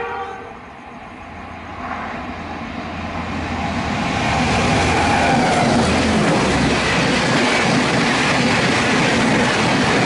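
Express train's air-conditioned coaches rushing past at speed beside a platform: a broad rush of wheels and air that builds and becomes loud and steady from about four seconds in. A locomotive horn cuts off in the first half second.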